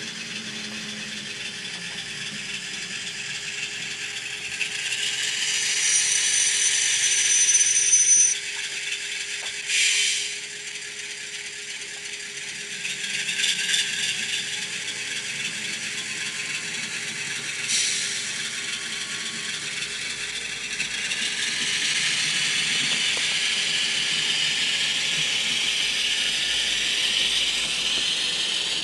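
Model goods train, a diesel locomotive hauling a string of closed vans, running along the track: a steady, high-pitched rattle of small wheels and gears, with a couple of sharper clicks about ten and eighteen seconds in.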